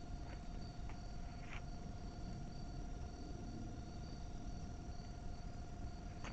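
Insects trilling steadily: a continuous mid-pitched trill and a higher, rapidly pulsing one, with a few faint clicks.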